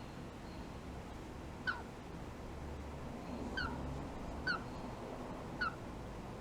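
Baby yellow-sided green-cheeked conure chick peeping: four short, high, falling cheeps spread a second or two apart.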